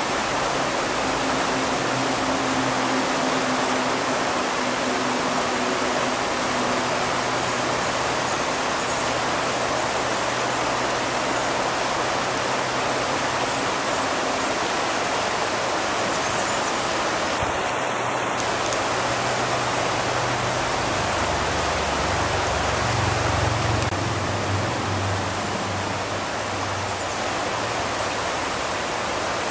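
River water rushing over rocks in shallow rapids: a steady, even rush with no change in level.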